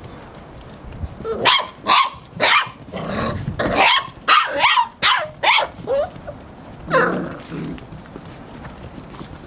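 A puppy barking: a quick run of about ten short, high yaps, then one more a second or so later.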